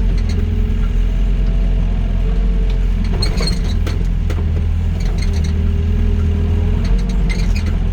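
Doosan DX55 mini excavator's diesel engine running steadily while it works, with a hydraulic whine that comes and goes. A few metallic clinks and knocks sound about three and a half and four and a half seconds in.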